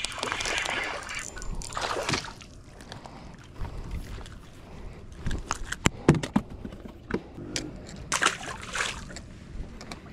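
Water sloshing and splashing, with scattered irregular knocks and clicks.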